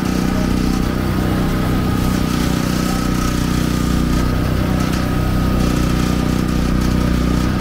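Small engine running steadily at an even pace, a constant low hum with a faint high whine over it.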